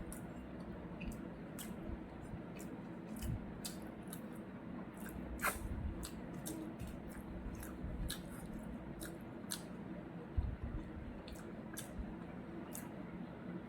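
Close-miked chewing and eating sounds: small wet clicks and smacks several times a second, with a sharper click about five seconds in and a soft thump near the ten-second mark, over a steady low hum.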